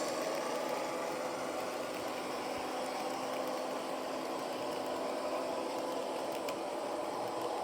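HO scale model diesel locomotive running, its sound decoder playing a steady diesel engine sound through a small onboard speaker.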